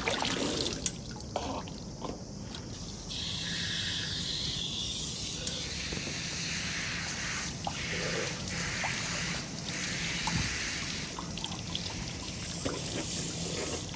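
Water splashing as hands throw water from a small inflatable paddling pool onto a face. About three seconds in, a garden hose starts running: a steady hiss of water pouring over a head and splashing down into the pool.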